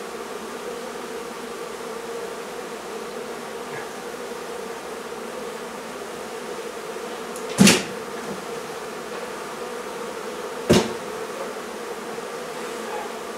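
Many honey bees buzzing in a steady, dense hum around an opened hive. Two sharp knocks stand out, one about eight seconds in and another about three seconds later.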